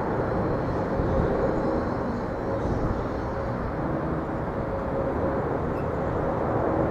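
Boeing 747-8 jetliner on approach, its four GEnx turbofan engines giving a steady low rumble with a faint hum held underneath.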